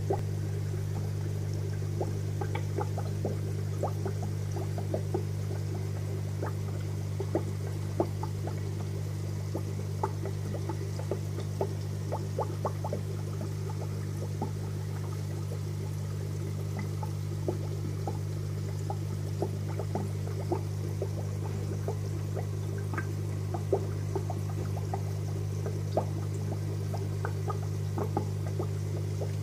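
Air-driven aquarium sponge filter bubbling: a steady gurgle of bubbles rising up the lift tube and breaking at the surface, with many irregular small pops, over a steady low hum.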